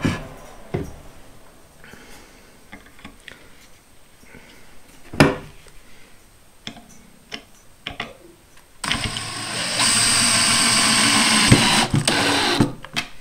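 Cordless DeWalt 20V drill driving a wood screw down into a countersunk pilot hole in a pine board, its motor running steadily for about four seconds near the end until the screw head sits flush. Before that, a few light handling clicks and one sharp knock about five seconds in.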